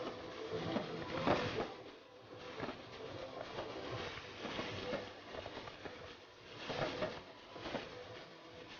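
Fireworks bursting and crackling, with a dense patter of small pops and scattered louder bangs, the strongest about a second in.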